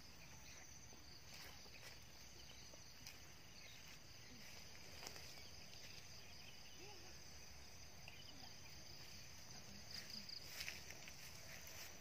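Faint, steady chirring of insects, with a few soft clicks near the end.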